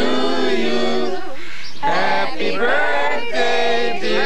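A group of people singing a birthday song together, unaccompanied, in long held notes, with a short break between phrases about a second and a half in.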